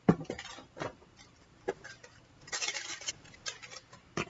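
A coin scratching the coating off a scratch card. Short sharp scrapes and taps, and one longer scrape of about half a second in the middle.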